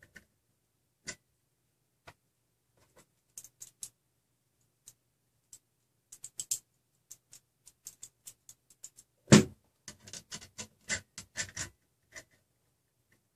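Small metal clicks and taps as a metal shaft coupler, its set screws and a small tool are handled and fitted onto a threaded rod. The clicks grow denser partway through, with one louder knock about nine seconds in followed by a quick run of clicks.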